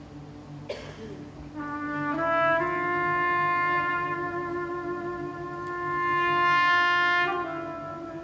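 Trumpet rising in two quick steps to a long held note over a steady low note from the band, then falling back near the end. A brief knock under a second in.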